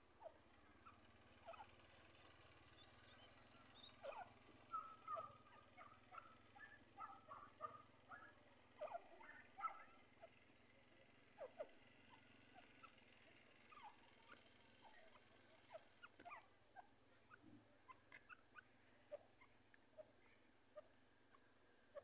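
Grey francolin giving faint, short soft calls at irregular intervals, busiest from about four to ten seconds in, over a steady high hiss.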